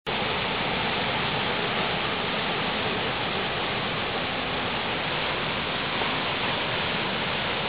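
Fast river whitewater rushing over rocks: a steady, unbroken rush of water.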